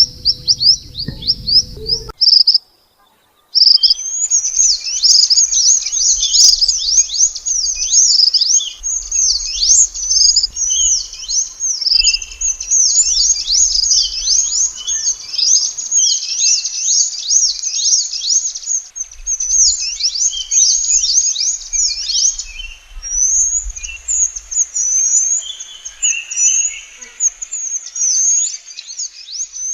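Minivets (burung mantenan) singing: a fast, unbroken stream of high, thin, downward-slurred chirps. There is a brief break of silence about three seconds in, where the recording cuts.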